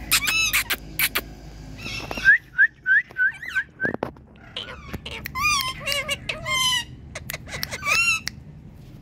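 Indian ringneck parrot calling: sharp shrill chirps, then a quick run of about six short rising notes, then longer bending squawks.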